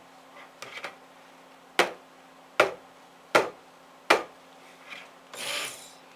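Stick blender's head knocking against the plastic bucket: four sharp knocks about three-quarters of a second apart, with a short swish near the end.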